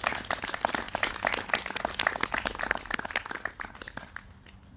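A small group applauding by hand: a dense scatter of claps that thins out and fades away near the end.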